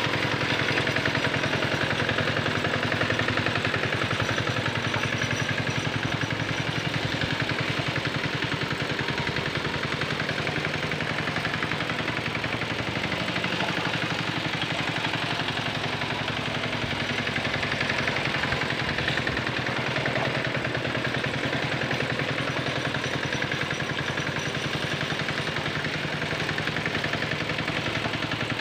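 Small engine of a Quick Capung Metal two-wheel hand tractor running steadily under load as it drags a harrow through wet paddy mud, with rapid, even firing pulses.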